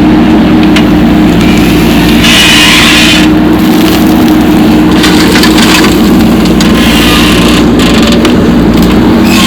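Heavy diesel engine of earthmoving machinery running steadily, with rough grating noises about two, five and seven seconds in as it works sand.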